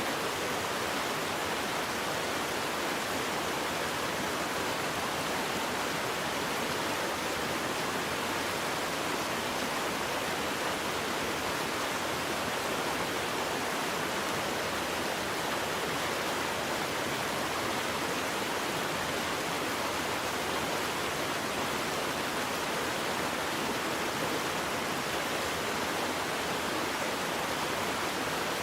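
Waterfall: water falling and rushing in a steady, unchanging roar of noise.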